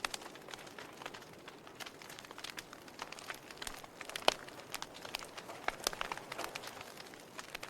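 Wood fire burning in a fireplace: a steady soft hiss with irregular crackles and sharp pops, one louder pop about four seconds in.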